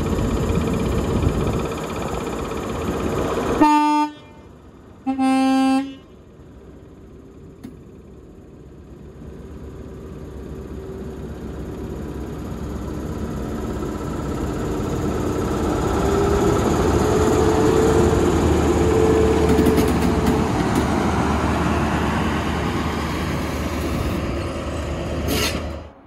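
Class 43 HST power car's diesel engine running, then its two-tone horn sounding a short higher note and a slightly longer lower note, about four and five seconds in. The engine then grows steadily louder for over ten seconds as the power car pulls away, easing off shortly before the sound cuts off abruptly.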